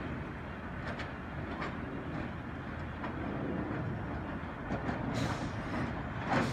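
A 1930s R1-9 subway train approaching, a steady rumble with scattered sharp clicks from its wheels on the track, growing a little louder toward the end.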